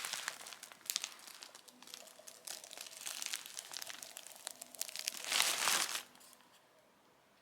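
Shein parcel packaging rustling as it is handled and opened, in irregular bursts. It is loudest about five and a half seconds in and stops about six seconds in.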